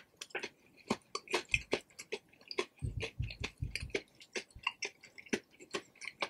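Close-miked chewing with the mouth closed: a steady run of small wet clicks and crunches from a mouthful of crumb-coated fried Spam fries.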